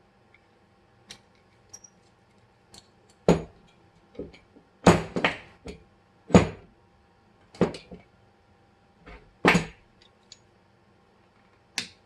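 Sharp metallic clicks and knocks of a 1911 pistol's frame and small parts being handled and worked by hand, about a dozen separate taps with short pauses between them, the loudest clustered through the middle.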